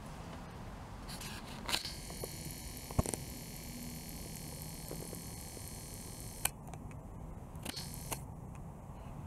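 A camera's zoom-lens motor whirring steadily for about four seconds as the lens zooms out, starting about two seconds in and stopping with a sharp click; a few other sharp clicks come before and after.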